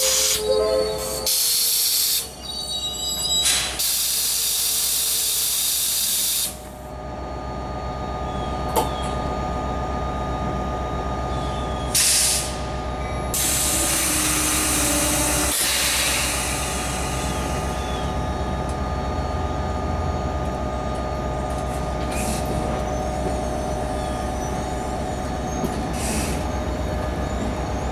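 NJ Transit multilevel passenger cars rolling slowly through the station with a steady rumble. Air hisses loudly from the brakes several times over the first half, the longest spells lasting a couple of seconds. A faint high wheel squeal comes near the end.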